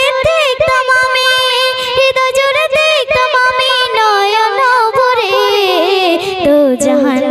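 A young girl singing a Bengali Islamic gazal into a microphone, holding one long wavering note and then sliding down through a wordless melodic run. A light percussive tick keeps a steady beat about three times a second underneath.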